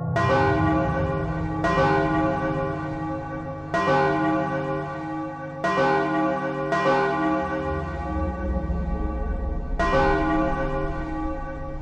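A bell struck repeatedly at uneven intervals, about six strikes, each ringing on long and overlapping the next.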